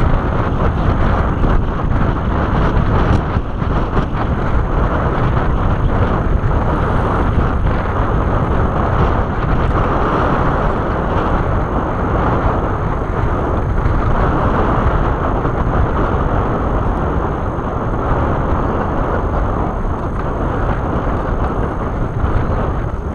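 Strong wind buffeting the microphone: a steady, loud, low rushing noise.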